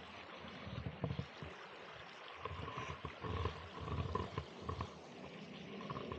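Wind buffeting the camera's microphone outdoors, an uneven low rumble that surges and eases in gusts.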